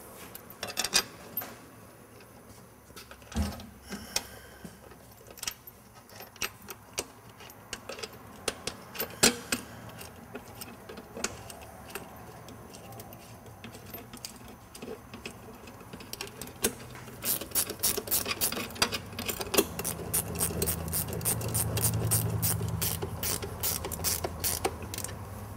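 Scattered metal clicks and clinks of hands and tools on the air cleaner's mounting bracket and bolts. About two-thirds of the way through comes a fast, even run of ratcheting clicks with a low hum beneath, as the bolts are run down.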